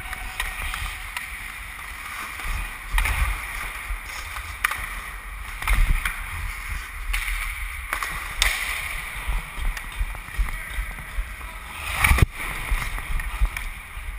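Ice hockey skates scraping and carving on rink ice, with sharp clacks from sticks and puck now and then, heard through a GoPro action camera with a low rumble underneath. A loud knock about twelve seconds in.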